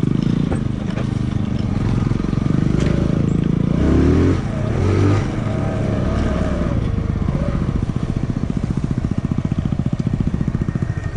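Small 125cc single-cylinder motorcycle engine running close by. From about eight seconds in it settles into an even, pulsing idle.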